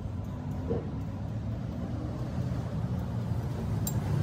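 Low, steady rumble of heavy machinery running, with one faint click near the end.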